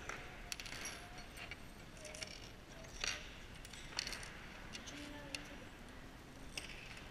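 Steel bolts, nuts and washers clinking and tapping as they are picked up and set down on a wooden table: scattered small metallic clicks, the sharpest about three and four seconds in.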